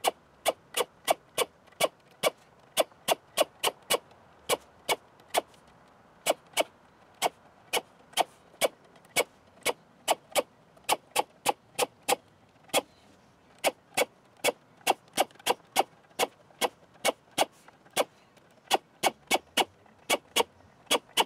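Air drill spinning a deburring bit against the drilled rivet holes of a thin aluminium wing skin, one brief whir per hole, about two or three a second.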